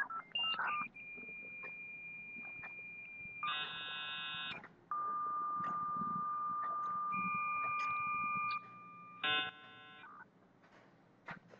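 Simulated dial-up modem connecting: a few short dialing tones, then steady single beeping tones broken twice by brief chords of many tones at once, the handshake of an old modem dialing in.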